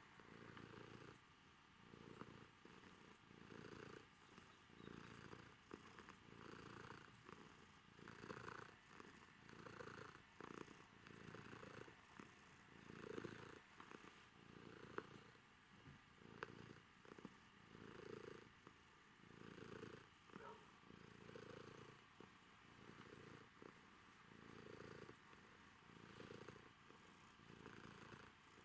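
Domestic cat purring quietly and steadily while being stroked, the purr swelling and easing with each breath, a little over a second apart.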